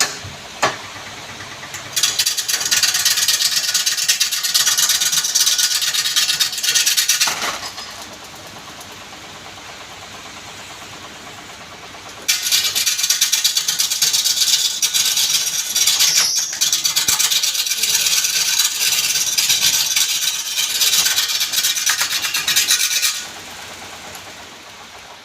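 A tool rasping against wood in two long passes, the first about five seconds and the second about ten, typical of a cutting tool or abrasive held to a piece turning on a woodturning lathe.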